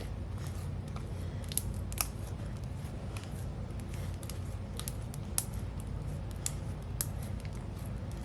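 Whipped slime mixed with sprinkles being squeezed and stretched by hand, giving small sharp pops and crackles at irregular moments over a low steady hum.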